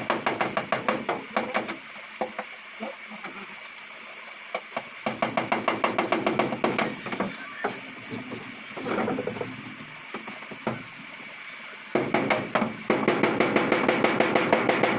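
Runs of quick, light hammer taps on a wooden box as it is fixed in place, several blows a second in bursts with short pauses between them.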